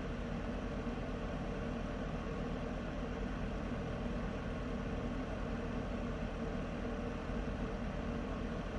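Heater running steadily: an even rushing noise over a steady low hum, unchanging throughout.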